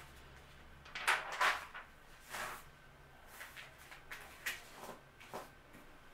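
Rustling and a few light clicks and knocks of things being handled close to the microphone, as a person leans in by the camera; a faint hum sits underneath.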